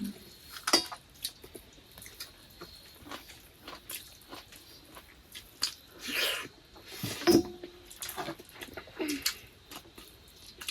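Eating sounds: mouth smacking and chewing with scattered small clicks, and a couple of louder short noises about six and seven seconds in.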